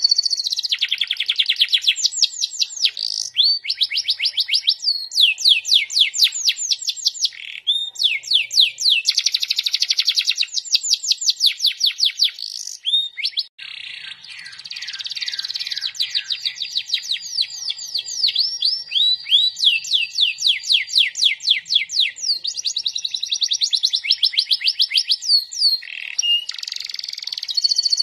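Domestic canary singing a long, continuous song of fast trills: each phrase is a rapid run of repeated notes, one phrase changing into the next, with a brief break about halfway through.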